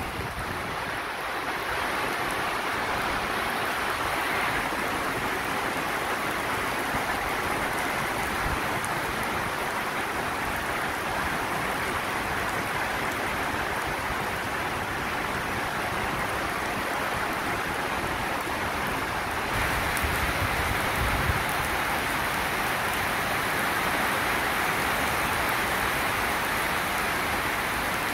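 Heavy rain pouring down steadily in a downpour, an even hiss of water on the platform and tracks, growing a little louder about two-thirds of the way through.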